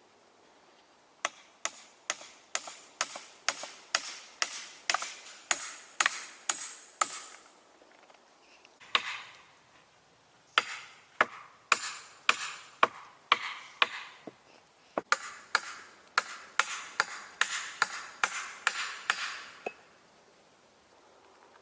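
Hand tool striking wood in steady runs of blows, about two a second, each with a short ring: three runs, with a single blow between the first two.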